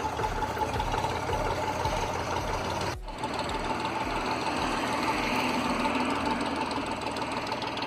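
Farm tractor's diesel engine running at low speed as it tows a caravan, with a brief break about three seconds in.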